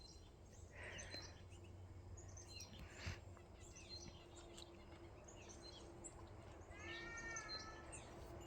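Quiet outdoor ambience with faint wild birds chirping here and there, and one short arched bird call about seven seconds in, over a low steady hum.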